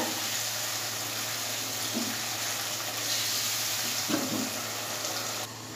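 Oil and masala sizzling in a wok as fried stuffed bitter gourds are stirred through them with a spatula: a steady frying hiss.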